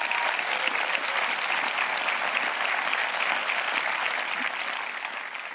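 A large audience applauding steadily, a dense patter of many hands clapping, easing off slightly near the end.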